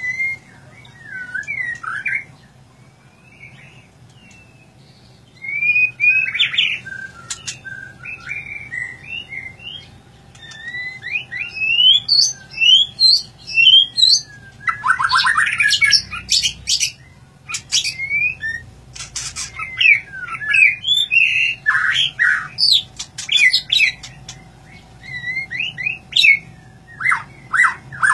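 White-rumped shama (murai batu) singing: loud, varied whistled phrases that glide up and down, broken by short pauses, with harsh rattling notes about halfway through and again near the end.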